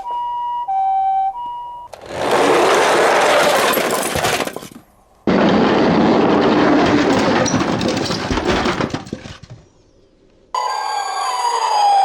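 Toy emergency-vehicle minicar sirens: a two-tone Japanese ambulance "pee-poh" siren alternating between two notes for about two seconds. Then come two long stretches of loud, dense rattling noise with a short break between them. A wailing siren sweeping up and down starts near the end.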